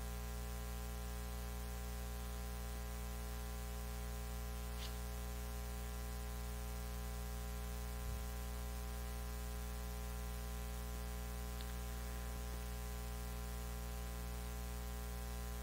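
Steady electrical mains hum with a stack of even overtones and a faint hiss, picked up in the microphone or sound-system feed. A faint click about five seconds in and a soft knock about eight seconds in.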